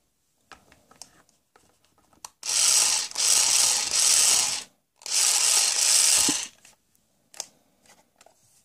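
Black & Decker toy cordless drill running its plastic gear mechanism in two bursts, the first about two seconds long with two brief catches and the second about a second and a half. Small plastic clicks and knocks of the toy being handled come before and after.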